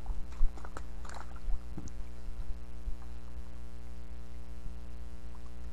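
A steady low hum, with a few light clicks and knocks in the first two seconds.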